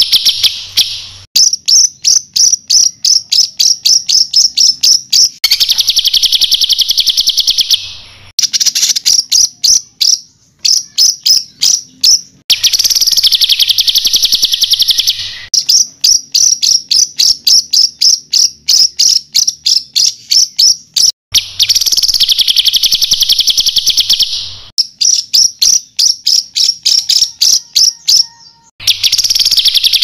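Songbird song on a bird-training master track, in a regular cycle: long runs of rapid-fire, evenly repeated sharp high notes alternate with dense buzzing trills lasting one to three seconds each.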